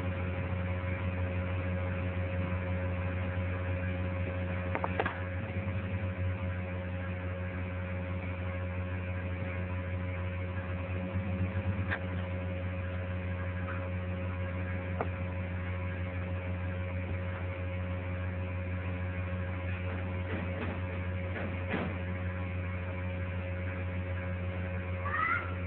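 Steady electrical mains hum, a low buzz with a higher steady tone above it, with a few faint clicks and a short rising chirp near the end.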